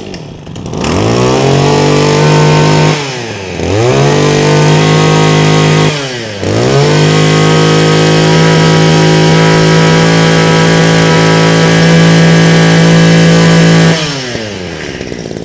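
Kawasaki TG24 24 cc two-stroke brush cutter engine, just pull-started, revving up to a steady high-pitched full throttle. It dips and climbs again twice in the first six seconds, then falls back to idle near the end.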